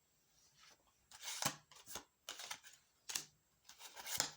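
Tarot cards being handled, a few short irregular rustling strokes.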